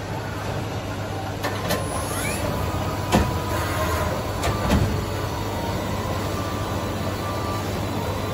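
Steady low electrical and mechanical hum of machine-shop equipment, with two short metallic clanks about three and five seconds in.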